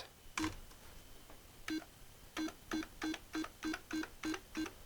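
Atari 65XE self-test keyboard test beeping once for each key pressed. A single beep comes about a second and a half in, then a steady run of short beeps about three a second.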